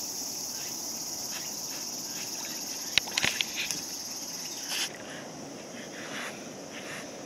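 Steady, high-pitched buzzing of a summer insect chorus, which cuts off abruptly about five seconds in. A few sharp clicks come about three seconds in. After the buzzing stops, swimming golden retrievers make soft water lapping and splashing.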